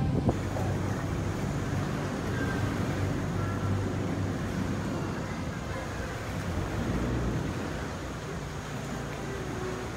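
Boat engine running steadily on the water, a low even hum, with faint voices from a crowd aboard a nearby tourist catamaran.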